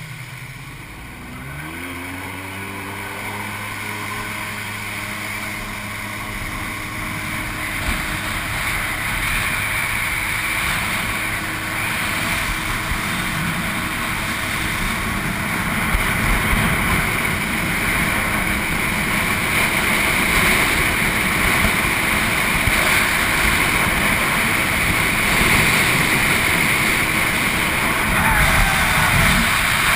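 Jet ski engine revving up about a second in, then running steadily at speed. A rushing noise of wind and water builds and grows louder over the ride.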